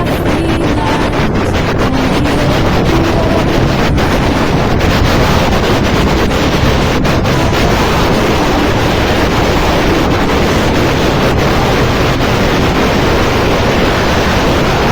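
Wind rushing steadily over the microphone on a moving motorbike.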